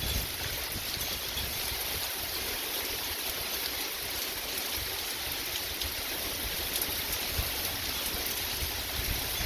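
Steady rain falling, an even hiss of water without a break.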